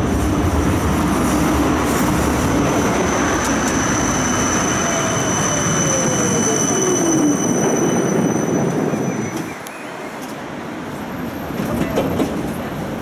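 Siemens Combino tram running on street rails, heard from inside the car: steady rolling noise with a high, steady wheel squeal through the middle, and a whine falling in pitch as it slows. It runs quieter from just before ten seconds in.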